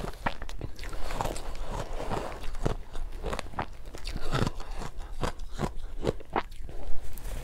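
Soft, powdery ice dusted with matcha powder being bitten and chewed, in quick, irregular crunches, with a spoon scraping and scooping through the ice in a glass dish.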